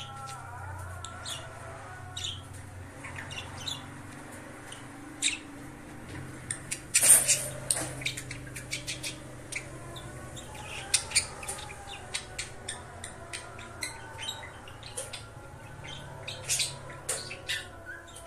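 Male budgerigar warbling: a busy stream of short chirps, clicks and squawks, with the loudest burst of calls about seven seconds in. A steady low hum runs underneath.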